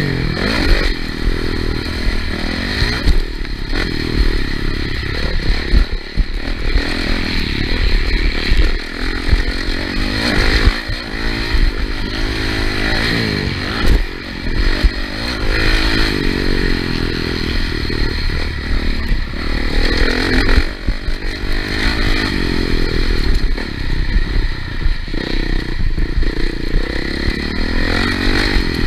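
Motocross bike engine revving hard and repeatedly rising and falling in pitch as the rider races, heard on-board, with low wind rumble and frequent knocks and rattles from riding over the rough track.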